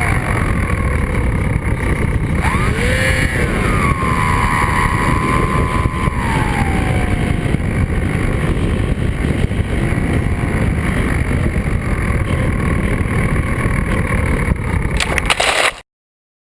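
Skywalker FPV model airplane's propeller motor whining in flight over a heavy rush of air on the onboard camera's microphone. The whine rises and falls about three seconds in, then settles to a lower, steady pitch, and the sound cuts off suddenly near the end.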